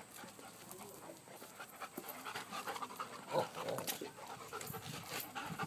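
A dog panting softly.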